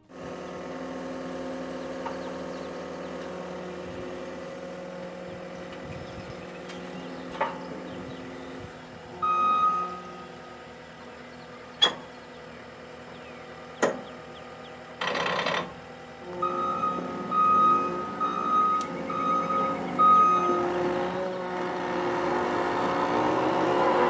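John Deere 333G compact track loader's engine running steadily while its backup alarm beeps, once near the middle and then in a string of about five beeps. A few sharp clicks and a short hiss sound in between, and the engine grows louder near the end.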